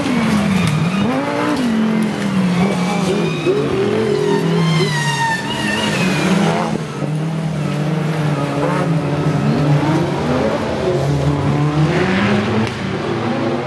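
Several autocross race cars, a Lamborghini Gallardo among them, running flat out on a dirt track. More than one engine is heard at once, each revving up and dropping back again and again through gear changes and corners.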